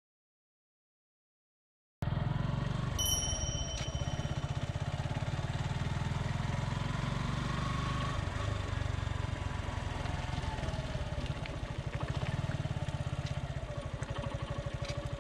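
Suzuki Gixxer SF 150's single-cylinder engine running as the motorcycle rolls slowly, heard from a camera mounted on the bike; it starts after about two seconds of silence. A short high beep sounds about a second later.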